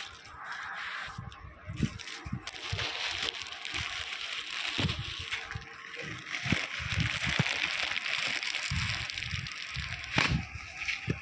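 Clear plastic wrapping crinkling and rustling as a kite-string spool (charkhi) is unwrapped and handled, with occasional dull bumps.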